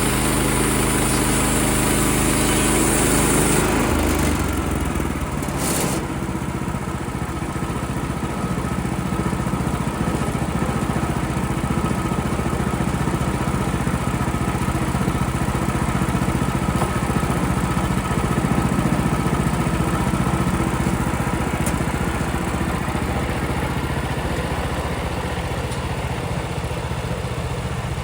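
Portable band sawmill's small gas engine running. For the first few seconds the band blade is cutting through a pine log with a loud hiss, which then stops. The engine then runs on steadily, unloaded, with a brief click about six seconds in.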